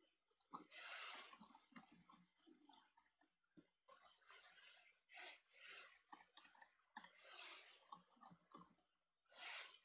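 Very faint clicks of a computer keyboard being typed on, with several soft breaths in between.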